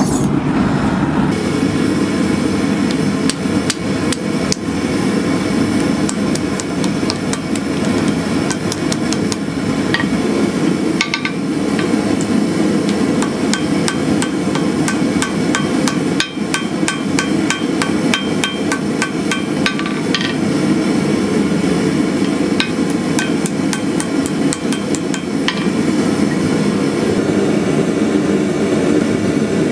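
Hand hammer striking hot steel on a steel anvil in runs of quick blows, the anvil ringing after the strikes, over the steady roar of a gas forge burner. The blows are forge-welding the seam of a Damascus habaki shut.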